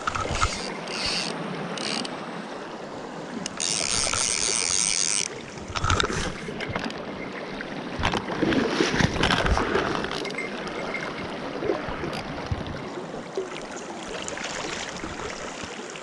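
Shallow mountain stream rushing over stones close to the microphone, with water splashing and several low thumps. About three and a half seconds in, a loud hiss lasts about a second and a half.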